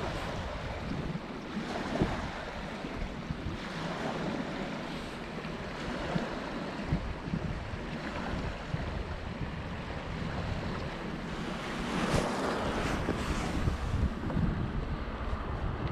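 Wind gusting on the microphone over small waves lapping against a rocky shore, with a few light knocks and clicks, mostly near the end, from fishing tackle being handled.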